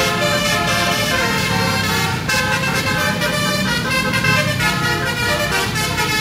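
A tour bus's basuri musical air horn playing a tune of held notes that change in steps, over steady traffic and motorcycle engine noise.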